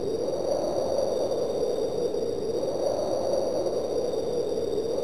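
Amiga demo soundtrack: a wind-like rushing noise, centred in a low-mid band that slowly swells and ebbs, with faint steady high tones above it.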